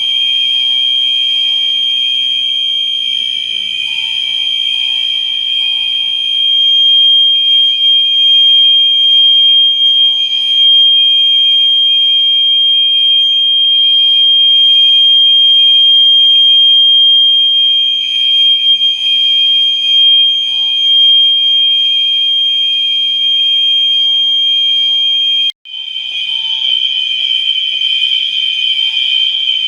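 Electronic fire alarm horns sounding together in one continuous, loud, high-pitched tone. The tone cuts out for a moment near the end, then resumes.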